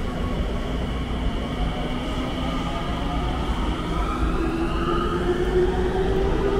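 Tsukuba Express electric train moving at the platform, with a steady low rumble. From about halfway through, the traction motors' whine rises in pitch as the train picks up speed.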